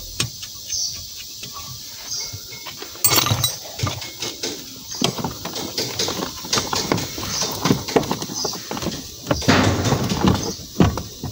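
Irregular metallic clicks, knocks and rattles of hands and tools working on the clutch pedal bracket of an Isuzu D-Max under the dashboard, as the pedal assembly is refitted. There is a loud clatter about three seconds in, then frequent knocks for the rest of the time.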